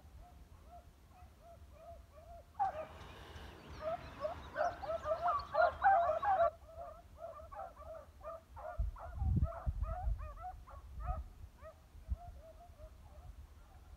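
Pack of beagles baying on a scent trail: many short, high yelps that overlap, densest and loudest from about three to six seconds in, then thinning to a string of single yelps. A few low thuds come about nine seconds in.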